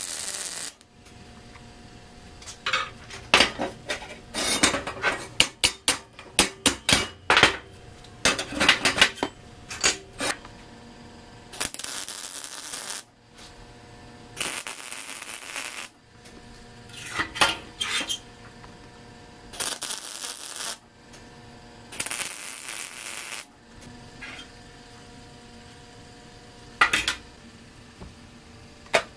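MIG welder tacking square steel tubing: several bursts of steady crackling hiss, each a second or so long. Between them, a run of sharp metallic clinks and knocks from steel parts and clamps being handled, over a faint steady hum.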